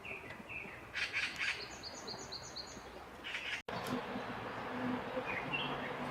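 Wild birds chirping and calling over a soft outdoor background hiss, including a quick run of repeated high notes. The sound drops out for an instant about three and a half seconds in, and the background comes back slightly fuller.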